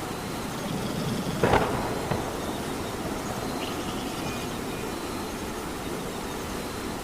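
Steady rain falling, with one sudden loud burst about a second and a half in that rumbles and dies away over the next second.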